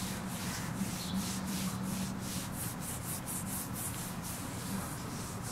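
A hand rubbing a Maltese–Yorkshire terrier mix's belly fur in quick repeated strokes, about four a second, close to the microphone, over a low steady hum.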